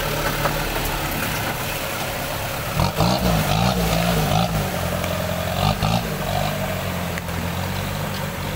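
Off-road 4x4 truck's engine running steadily, revved in a few quick rising-and-falling blips about three seconds in and once more near six seconds, then settling back to a steady run.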